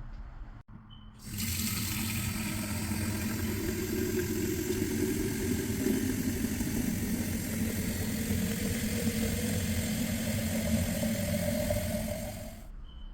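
Water running hard from a tap into a container, starting suddenly and shut off near the end. A tone in the splashing slowly rises in pitch as the vessel fills.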